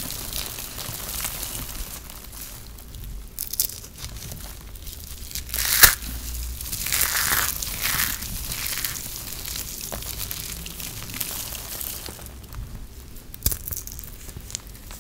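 Fingers crushing and crumbling balls of dry shredded soap, giving an irregular crisp crunching and crackling, with a sharp louder crack about six seconds in.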